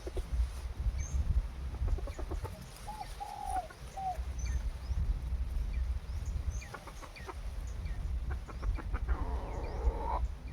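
Junglefowl clucking in short, separate calls, with a louder, noisier call about nine seconds in. Small birds chirp faintly in the background.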